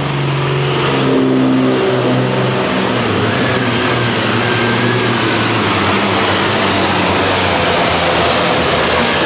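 John Deere 4030 Pro Farm pulling tractor's diesel engine running hard at full throttle under load, pulling the sled down the track with a steady, loud roar. A high whine climbs steeply in pitch in the first second.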